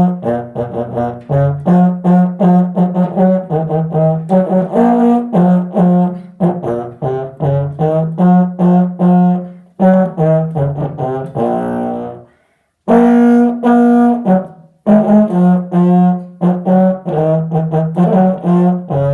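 Low brass notes played one after another as a tune, in phrases with short breaks for breath and a longer pause about twelve seconds in.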